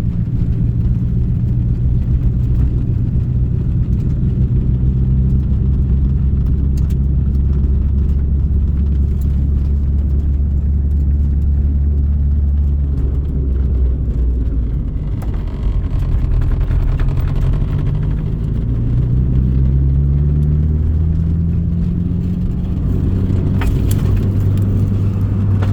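Turbocharged 4G63 four-cylinder of an AWD Eagle Talon TSi, heard from inside the cabin while driving. It runs at a steady low note, then climbs in a couple of rising steps about three quarters of the way through and settles lower again. The engine is misfiring and will not build boost.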